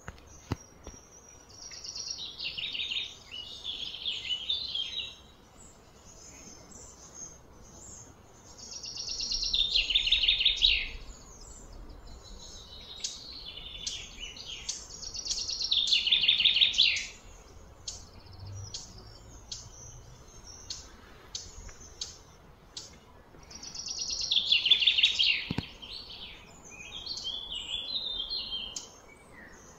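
High chirping calls of small wild animals, in four phrases of two to three seconds each that swell in loudness and then stop, a few seconds apart, with scattered short chirps in between.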